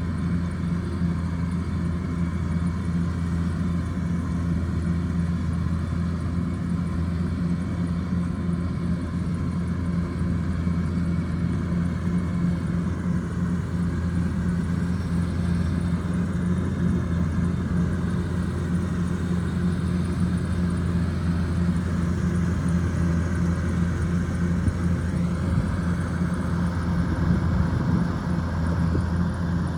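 Kubota DC105X combine harvester running steadily under load while harvesting rice: a constant low diesel-engine drone mixed with the whir of the threshing and cutting machinery.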